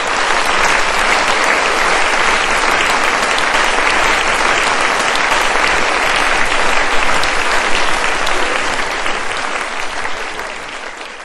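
Audience applauding, a dense steady clapping that fades away over the last couple of seconds.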